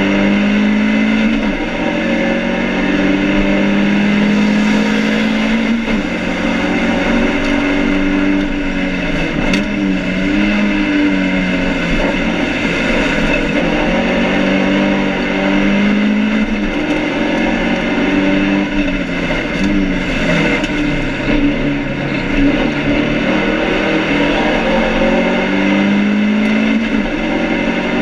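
Inside the stripped cabin of a BMW 2002 race car, its four-cylinder engine is run hard on track. The engine note climbs in pitch and drops again over and over as the driver shifts and lifts. The car is being short-shifted as much as possible because of an ongoing overheating problem.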